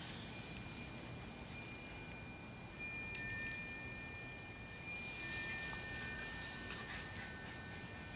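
Metal wind chimes ringing: tubes struck in irregular clusters give high, clear tones that ring on for seconds. The strikes grow busier about five seconds in.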